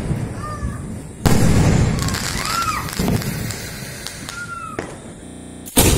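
Sky shot fireworks firing aerial shells: a loud bang about a second in, a second bang near the end, and crackle fading away between them.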